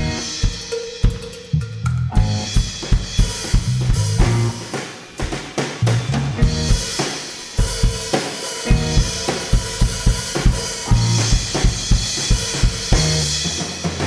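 Live band playing an instrumental passage led by a full drum kit, with steady kick, snare and cymbal hits over sustained electric bass notes.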